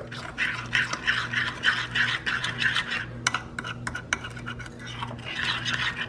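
Metal spoon stirring a thick Bird's custard-powder paste around a glass bowl, scraping against the glass in quick repeated strokes, over a low steady hum.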